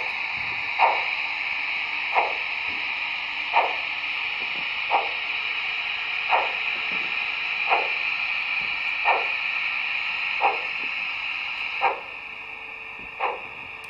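Sound decoder of a Märklin 55077 gauge 1 BR 78 steam locomotive model playing slow steam-exhaust chuffs, about one every second and a half, over a steady hiss, as the locomotive starts off. The hiss falls away about twelve seconds in while the chuffs continue.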